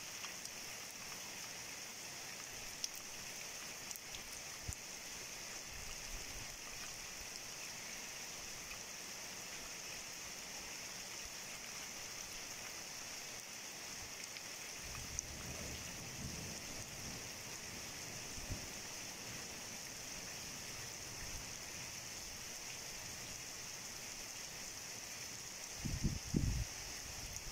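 Heavy thunderstorm rain falling as a steady hiss. A low rumble comes in for a few seconds about halfway through, and there are a couple of short low thumps near the end.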